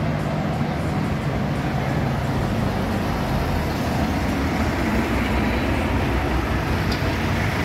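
Motor vehicle and road traffic noise: a steady, dense rumble of engines.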